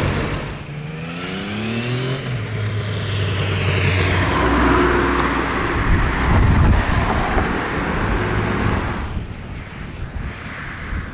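A motor vehicle's engine speeding up, its pitch rising over the first couple of seconds, then the vehicle passing by and fading away about nine seconds in.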